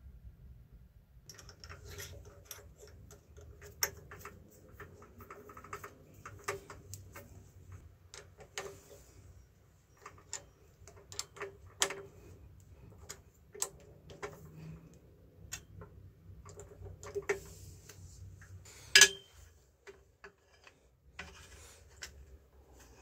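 Scattered metallic clicks and ticks from hand work with small steel tools: a drill bit measured in a digital caliper and then clamped into a drill press's keyed chuck. One sharp click late on is the loudest.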